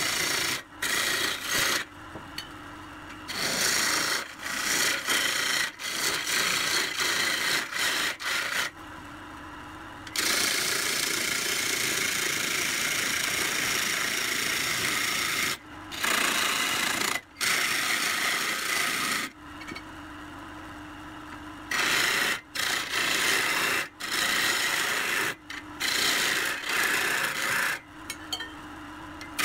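Hand-sanding an old pine vase as it spins on a wood lathe: the abrasive hisses against the wood in stretches that start and stop, one running unbroken for several seconds around the middle. The lathe's steady hum shows through in the pauses.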